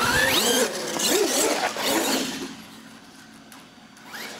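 Radio-controlled monster truck's motor and drivetrain whining, the pitch sweeping up as it accelerates at the start, then dropping away after about two and a half seconds.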